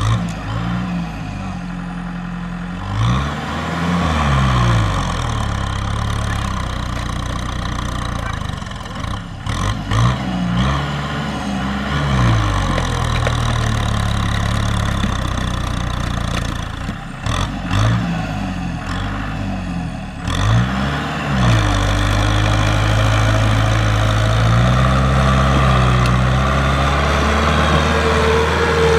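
A farm machine's diesel engine revving up and down again and again, then holding steady at high revs for the last third.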